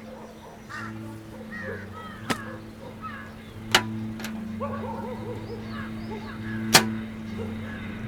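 Background music with a steady drone and short melodic figures, cut through by three sharp knocks, the loudest near the end.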